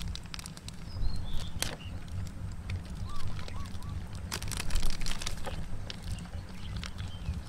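Plastic seasoning sachet crinkling and rustling in the fingers as spice flakes are shaken out of it, in quick crackly clicks that are loudest about four to five seconds in. A steady low rumble runs underneath, with a few faint bird chirps.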